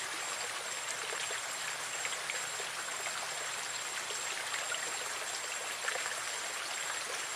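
Water running steadily through a small ditch, an even rushing with small splashy ticks.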